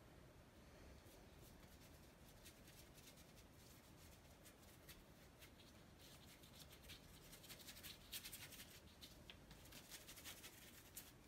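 Faint, scratchy strokes of a paintbrush dragging paint across paper, coming thicker and faster in the second half.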